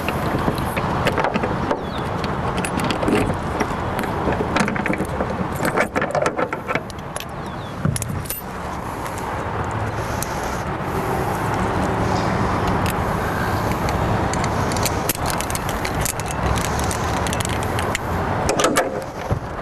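Metal climbing carabiners clinking together, with many short sharp clicks of their gates as they are opened, placed and hooked back to the wall one after another, over a steady low background rumble.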